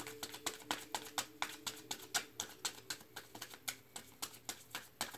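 A deck of tarot cards being shuffled overhand by hand: a continuous run of soft card slaps and clicks, about five a second.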